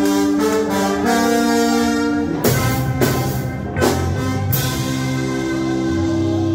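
Live ska band playing: the horn section of trombones, saxophones and trumpet holds long notes over bass and drums. A few loud drum and cymbal hits come about halfway through.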